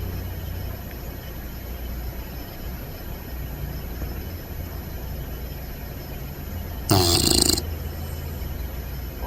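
English bulldog puppy snoring with a steady low rumble, broken by one loud, short snort about seven seconds in.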